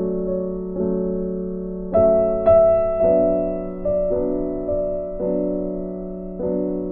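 Slow background piano music: soft chords that ring and fade, a new one struck about every second.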